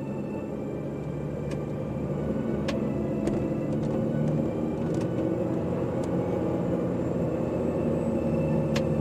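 Heavy goods lorry's diesel engine running at low road speed, heard from inside the cab, a steady low hum that grows slightly louder about two seconds in, with a few sharp clicks and rattles.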